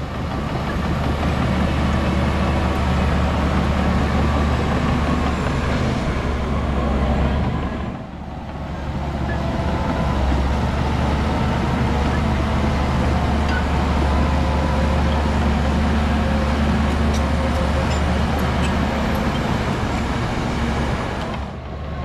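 Diesel engine of heavy earthmoving machinery running steadily with a low drone, dipping briefly about eight seconds in and again near the end.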